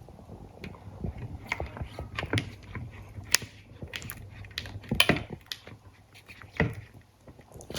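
Irregular light clicks, taps and scraping of a mixing utensil against a bowl as glue and food colouring are stirred.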